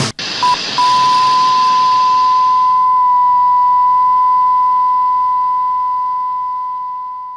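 Television test-card tone over static hiss: a short beep, a brief break, then one steady pure tone that slowly fades out. The static is strong at first and dies away about halfway through.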